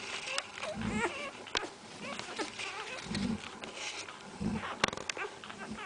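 Central Asian Shepherd Dog puppies whining and squeaking in short wavering cries, with scattered clicks and a few low thumps.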